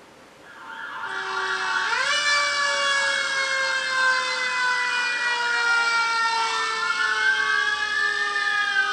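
Fire truck siren fading in. One wail rises sharply about two seconds in, then slides slowly down, while a second wail climbs and falls again near the end.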